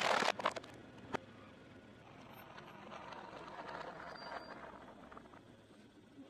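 Plastic toy truck and trailer cracking and crunching under a car tyre. It is loudest at the start, with a few sharp snaps in the first second or so, then a quieter gritty crackle as the tyre rolls on.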